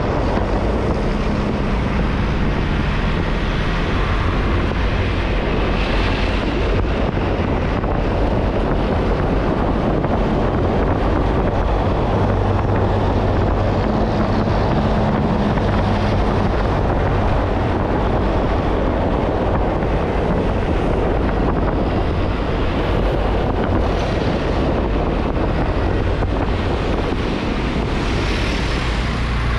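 Wind rushing over the microphone of a moving motorbike, with the engine running steadily underneath.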